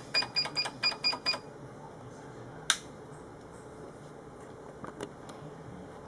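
Keys on the keypad of an Easycut digital readout panel pressed in quick succession, each press giving a short electronic beep, about six in the first second and a half. A little before halfway comes one sharp, loud click, and a few faint clicks follow about five seconds in.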